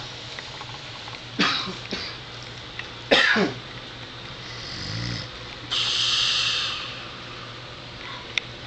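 A man snoring heavily in irregular breaths. Two short, loud bursts come about a second and a half and three seconds in, a lower rattling snore around five seconds, then a long hissing breath near six seconds, with a sharp click near the end.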